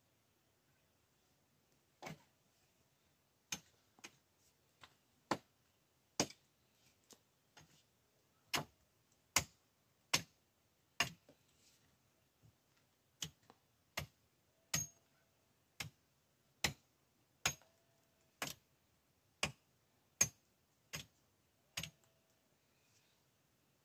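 A series of sharp knocks, roughly one a second but unevenly spaced, for about twenty seconds; a few of them leave a brief ringing tone.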